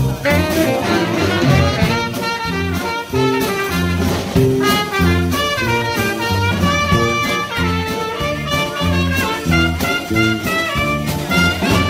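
Swing big band music: saxophones and brass playing over a steady bass line and beat.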